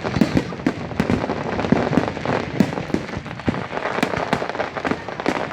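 Aerial fireworks bursting in a dense, irregular string of bangs and crackles, several reports a second, with no break.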